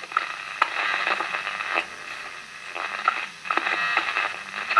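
Small speaker of an early-1970s germanium-transistor clock radio playing a radio broadcast, with a few scratchy crackles. Its volume control does not turn the sound down, a fault traced to a worn volume potentiometer.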